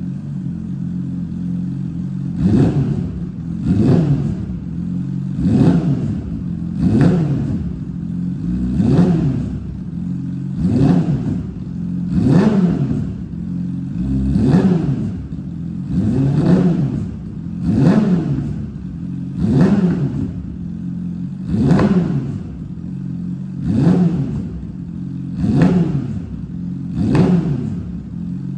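Yamaha R6 inline-four sport-bike engine idling through an aftermarket exhaust, then blipped over and over, about one short rev every two seconds, each rising and falling back to idle.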